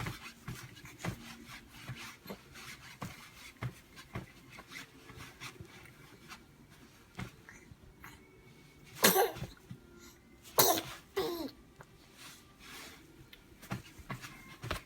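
Sneezing: one loud sneeze about nine seconds in, then two more in quick succession about a second and a half later. Faint rustling and small clicks fill the rest.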